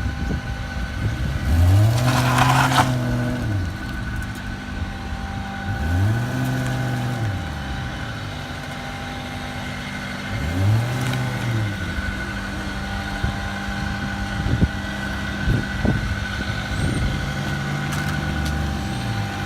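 A car engine idling and being revved hard three times, the pitch climbing and falling each time, with another rise near the end. It is a burnout attempt with the traction control switched off, and the car does not break its tyres loose. A brief hiss comes with the first rev.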